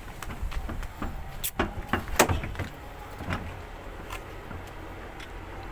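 Scattered knocks and clicks, the loudest about one and a half and two seconds in, over a low background rumble.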